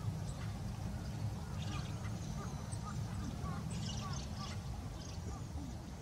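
Outdoor ambience: a steady low rumble with many short, faint bird chirps and calls scattered throughout.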